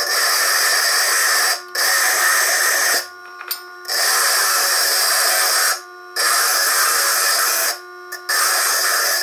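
Foredom bench lathe with a 17 mm core drill wet-grinding a hard stone toward a sphere: a loud, harsh grinding hiss while the stone is pressed to the spinning drill. Four times it breaks off briefly, leaving only the steady hum of the lathe motor.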